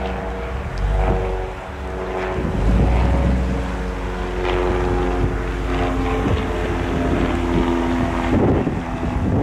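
Dodge Challenger's engine running at low revs as the car rolls slowly past, its pitch shifting every second or two, with wind noise on the microphone.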